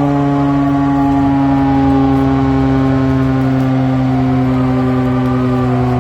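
The historic 'gaog' siren sounding one long, loud wail whose pitch slowly falls: the signal for breaking the Ramadan fast.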